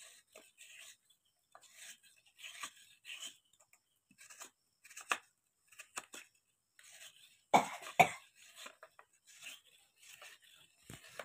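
Fresh coconut flesh being scraped out of a half shell with a metal spoon in short, irregular strokes, coarse flakes dropping into a steel bowl. One louder burst comes about two thirds of the way through.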